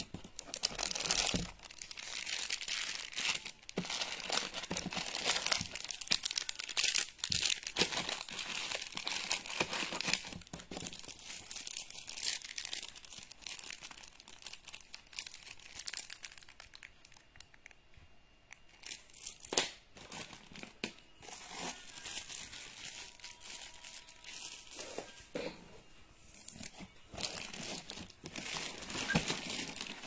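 Clear plastic packaging film crinkling and rustling in irregular bursts as hands unwrap packed parts. It is busiest in the first ten seconds and again near the end, with a quieter stretch in the middle.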